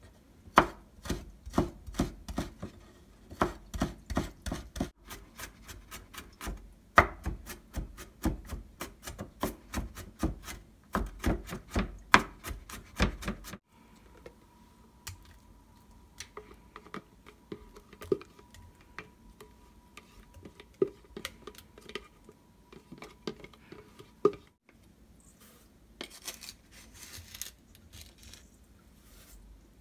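Kitchen knife chopping garlic on a wooden cutting board, about three quick strokes a second, stopping abruptly about halfway. After that come softer scraping and occasional taps of a spatula against a stainless steel bowl.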